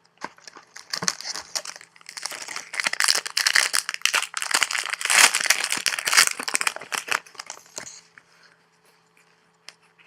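Crackling of a trading-card pack wrapper being torn open and crumpled in the hands, a dense run of crinkles that dies away about two seconds before the end.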